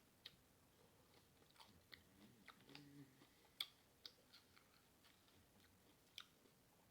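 Faint close-up chewing of Doritos nachos: scattered soft crunches and wet mouth clicks, the sharpest about three and a half seconds in.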